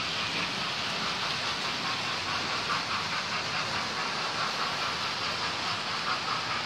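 Model train running on a layout: a steady rushing hiss of motor and wheels on the track, with light rhythmic clicking as the wheels cross the rail joints.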